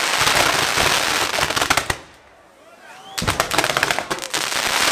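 Castillo fireworks tower burning: a dense, rapid crackling and popping of firecrackers. It cuts off suddenly about two seconds in, leaving about a second of quieter sound with a few short whistling glides, then the rapid crackling starts again.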